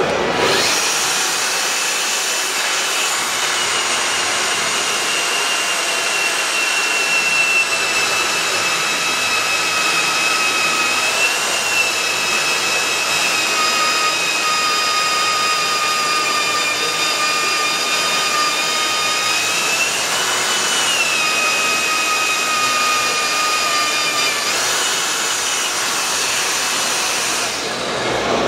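A Metabo MAG 28 LTX 32 cordless magnetic drill press runs under load as its annular cutter bores into a steel pipe, with a steady high-pitched motor whine. The pitch rises briefly twice, about a third and two thirds of the way through, and the sound cuts off near the end.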